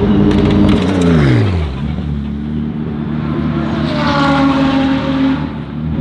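BMW M4 GT3's twin-turbo straight-six running steadily as the race car drives past in the pit lane, its note dropping sharply about a second in and settling into a lower steady note. A fainter, higher note rises and falls later on.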